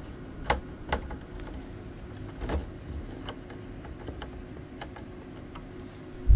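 Sharp clicks and knocks from handling the plastic underside of a laptop being put back together, the loudest about half a second and a second in and another around two and a half seconds, with lighter ticks after and a dull thump at the very end. A steady low hum runs underneath.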